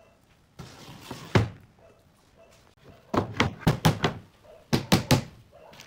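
A stack of pine pallet boards set down on a wooden workbench with one loud knock, then a small claw hammer tapping the boards in a quick run of about a dozen sharp knocks to square up their edges.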